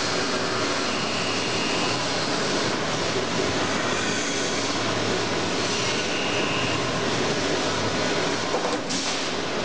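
Automatic saw blade welding machine running: a steady mechanical noise, with a faint high tone that comes and goes twice about five seconds apart.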